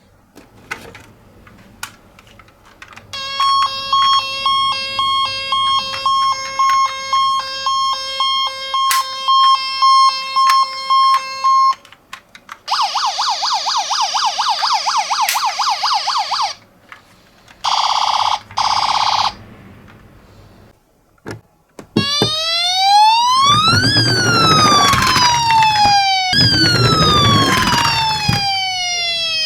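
Toy miniature ambulance's electronic siren sounding through its small speaker, cycling through several modes: a steady two-tone hi-lo alternation for several seconds, then a fast warble, two short blasts, and finally a slow rising and falling wail, twice. A few light clicks come before the siren starts.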